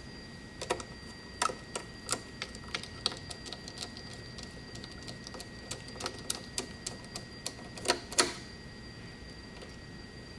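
Irregular sharp clicks and taps, a few a second, with a louder double click near the end, over a faint steady high-pitched whine.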